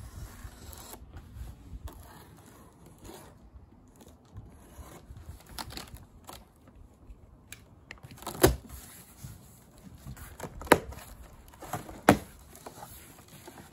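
A cardboard shipping box being cut open and unpacked: a knife faintly scraping through packing tape, then three sharp snaps of tape and cardboard flaps being pulled apart in the second half.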